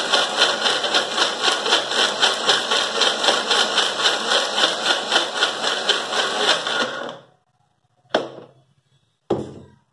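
Electric mixer grinder running with its steel jar, grinding soaked dates, jaggery and water to a paste; the motor stops about seven seconds in. Two short knocks follow as the steel jar is handled on the base.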